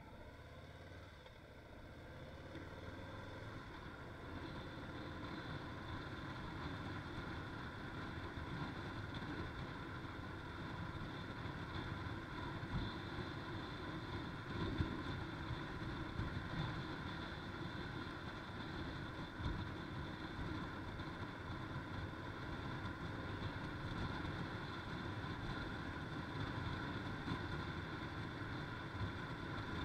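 Harley-Davidson FXLRS motorcycle under way, engine running under steady wind and road noise. The sound builds over the first few seconds as the bike pulls away and gathers speed, then holds steady.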